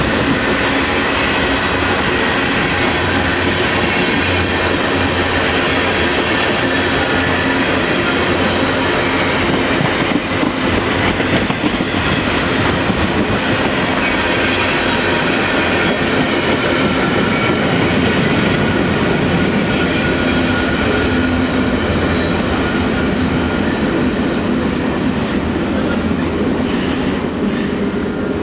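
A Canadian National freight train rolling past, with a steady, unbroken noise of steel wheels running on the rails.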